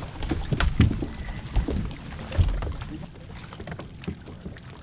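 Water and wind noise around a bass boat, with a scatter of knocks and thumps on the boat, the loudest about one second and two and a half seconds in; quieter and steadier in the last couple of seconds.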